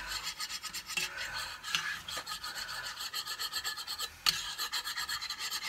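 Metal spoon scraping and stirring against the bottom of an enamelled Dutch oven in quick, repeated rasping strokes, with a short pause about four seconds in. The spoon is working the browned bits (fond) off the pot's bottom among the onions and sausage.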